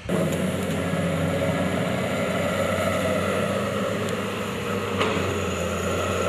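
Komatsu crawler excavator's diesel engine running steadily, an even low hum, with a light knock about five seconds in.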